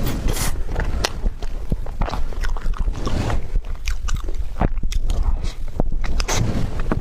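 Close-miked chewing of a soft tiger skin roll cake, with many small sharp mouth clicks and smacks throughout.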